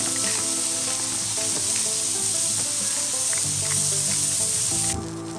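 Burger patties sizzling hard on a hot griddle plate over a charcoal grill, a steady frying hiss that stops suddenly about five seconds in. Background music with held chords plays underneath.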